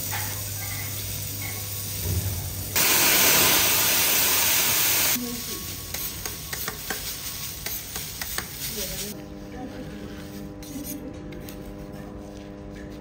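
Food sizzling on a steel teppanyaki griddle, with a loud rush of sizzling hiss lasting about two seconds a few seconds in. Then metal spatulas click and tap on the steel plate as garlic fried rice is chopped and tossed, and near the end a spatula scrapes across the plate.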